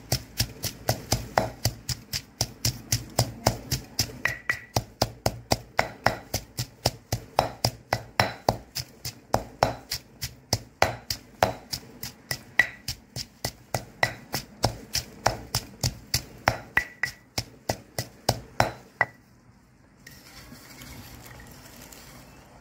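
Granite pestle pounding kaffir lime leaves, shallots and garlic in a stone mortar: a steady beat of about three knocks a second that stops about nineteen seconds in.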